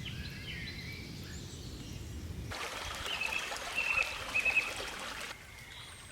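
Stream water running, with small birds calling over it. About two and a half seconds in the sound switches abruptly to a brighter, hissier rush of water with a bird repeating short calls, then drops quieter shortly before the end.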